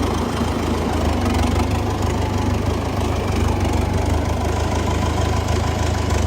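Tractor diesel engine running steadily with a deep, even hum.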